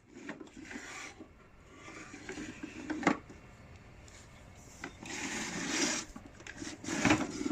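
Plastic vacuum-cleaner parts and packaging being handled: irregular rubbing and rustling with two sharp clicks, about three seconds in and again near the end.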